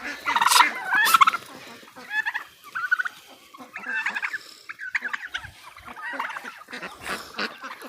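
Domestic turkeys gobbling, loudest in the first second and a half, followed by quieter scattered calls from the surrounding poultry.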